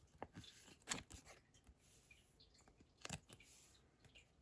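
Faint rustle and slide of Pokémon trading cards being handled, with a couple of soft clicks, one about a second in and one about three seconds in.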